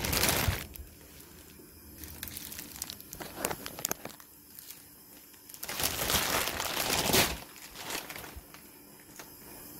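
Crinkling of a thin plastic kitchen glove being handled, in two bursts: a short one at the very start and a longer one lasting about a second and a half, beginning about six seconds in.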